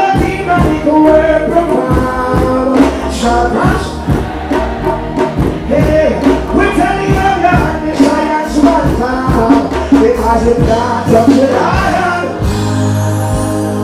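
Live reggae performance over a loud stage PA: a male singer's voice over the band's bass and drums.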